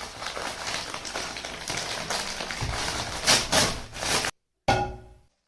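Loud crackling, rustling noise close to the microphone, with a couple of sharper peaks near the end, then cutting off abruptly about four seconds in; a brief burst with a faint tone in it follows.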